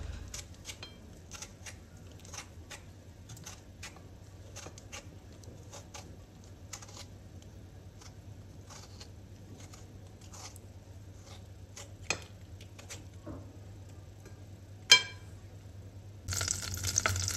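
Vegetable peeler scraping the skin off ripe tomatoes: a run of soft, irregular rasps and clicks, with one sharp knock near the end. In the last second, oil sizzling in a pan.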